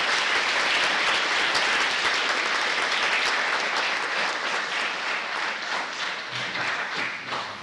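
Audience applauding: steady dense clapping that thins out and fades over the last second or so.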